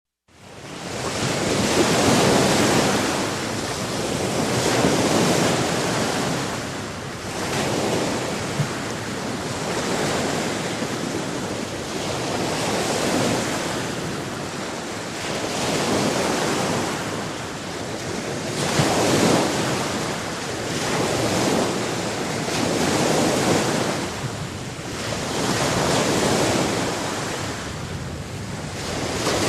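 Sea surf: waves breaking and washing in, the sound swelling and falling back about every three seconds.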